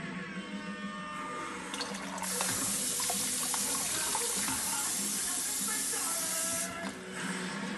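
Tap water running into a sink and splashing over a whetstone and hands, starting about two seconds in and cutting off about a second before the end.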